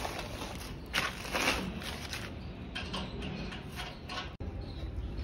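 Scattered clicks, clinks and rustling from an awning frame being assembled by hand, with spanners on its bracket bolts, over a low steady background hum.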